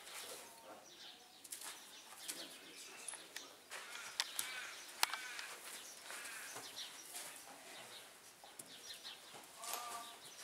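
Faint birds chirping, with scattered rustles and clicks and one sharp click about five seconds in.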